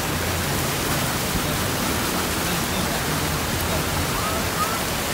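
A vehicle's tyres ploughing through flooded street water, throwing up spray: a steady rushing splash with a low hum underneath.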